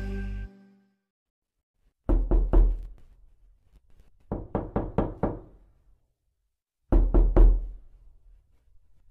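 Knocking at a door: three bouts of four or five quick raps, spaced about two seconds apart. Background music cuts off about half a second in.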